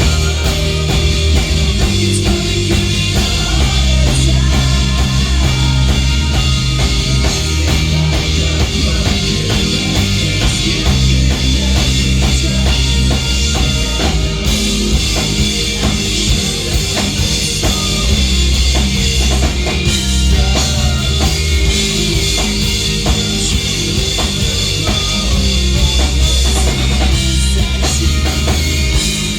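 A rock band playing live and loud, with a drum kit, guitars and bass.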